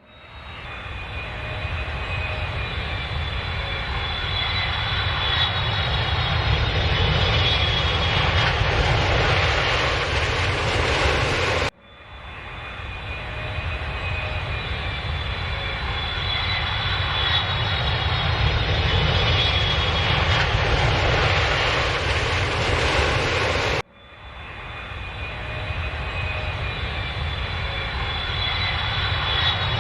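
Airplane engine noise with high whining tones that fall slowly, swelling up from quiet over a few seconds. The same roughly 12-second stretch repeats three times as a loop, each pass cutting off abruptly.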